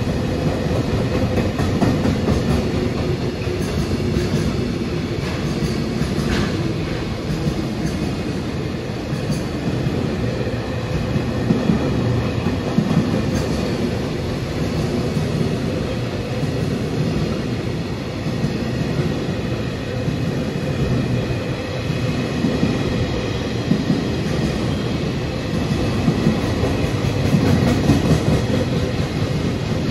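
A long container freight train of flat wagons loaded with JR containers passing steadily alongside the platform, its wheels running on the rails in a continuous, unbroken noise.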